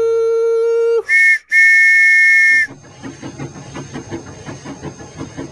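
Steam locomotive whistle sound effect: a long low blast ends about a second in, then two short, higher two-note blasts with a hiss of steam.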